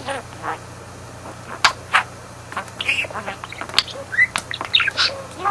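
Budgerigar chattering: quick clicks, squeaks and short warbled chirps, busier in the second half, over a steady low hum.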